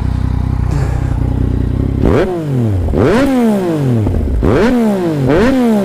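Yamaha MT-09's three-cylinder engine, breathing through an Akrapovic exhaust with its baffle removed, idles steadily, then about two seconds in is blipped four times, each rev rising sharply and falling back, the last two in quick succession.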